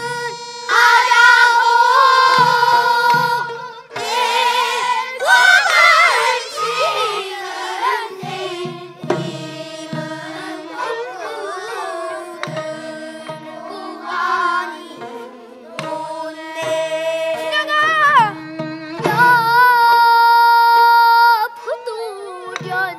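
Changgeuk singing by a child in pansori style, with long held and bending notes over traditional Korean instrumental accompaniment and drum beats.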